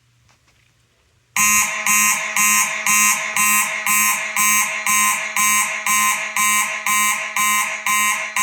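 Faraday mechanical fire alarm horns sounding in a loud, buzzing on-off pattern of about two blasts a second, starting about a second and a half in. This is the system going into alarm after a smoke detector has been set off.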